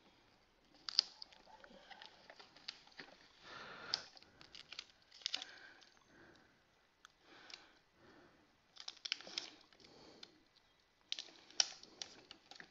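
Hands handling a plastic toy robot while peeling sticker decals from their backing paper and pressing them onto its body: scattered light clicks and taps of plastic, with short rustles of paper and sticker backing.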